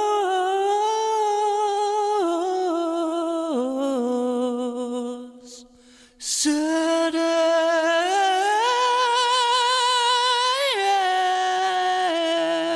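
A lone unaccompanied voice singing long held notes with a wavering vibrato, stepping up and down in pitch, with a brief break about five seconds in.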